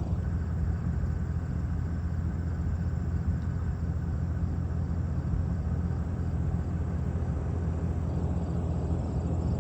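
Steady low rumble of a car's engine and road noise heard from inside the cabin, even and unchanging.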